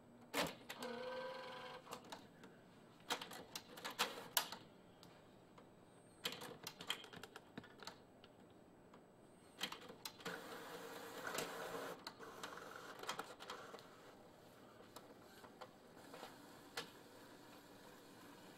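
Epson Artisan 700 inkjet printer printing a page after Start is pressed. Short motor whirs alternate with a series of sharp mechanical clicks as the paper is fed through, with a longer whir about two-thirds of the way in.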